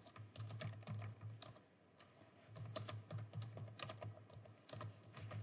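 Typing on a computer keyboard: quick, irregular runs of keystroke clicks, with a short pause about two seconds in.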